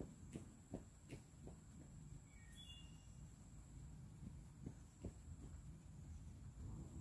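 Near silence: a faint low rumble and a steady high whine, with a few soft knocks in the first two seconds and again around five seconds, and a couple of brief faint bird chirps about two and a half seconds in.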